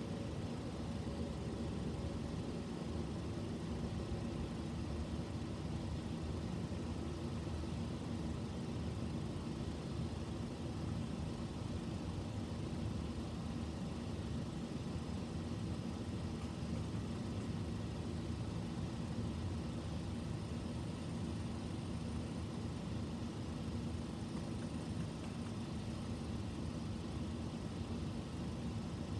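Steady low rumble, like a vehicle engine idling. A faint falling tone, the tail of the Whelen WPS 4004 siren, fades out in the first couple of seconds.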